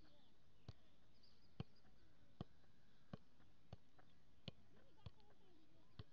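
A football being juggled: soft, sharp thuds of the ball against foot and thigh, about eight touches, roughly one every three-quarters of a second.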